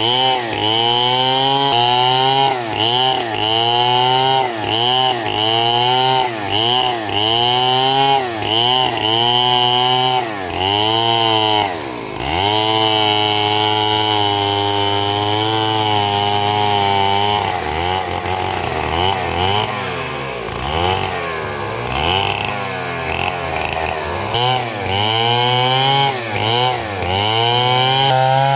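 Stihl two-stroke chainsaw running at high revs while cutting wood. The engine pitch dips and recovers over and over, a little more than once a second. It holds steady at full speed for a few seconds near the middle and turns uneven before the dips resume.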